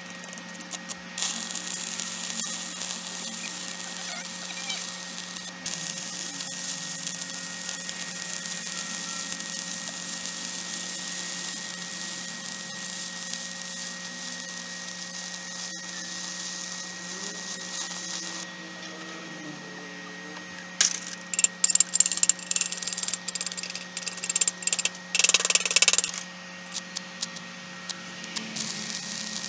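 Stick (arc) welding of rusty flat steel bars with CHEM-WELD 7100 electrodes for rusty, dirty steel: a steady crackling hiss of the arc for the first half, then after a short lull a run of sharp, irregular crackles and pops, over a steady hum.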